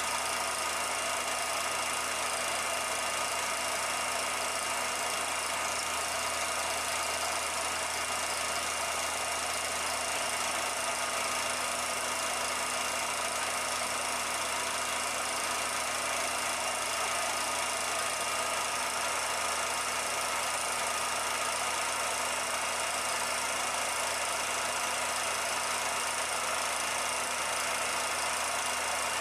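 Steady mechanical running noise of a 16mm film projector during transfer: an even hiss with a constant hum and a few fixed tones, unchanging throughout.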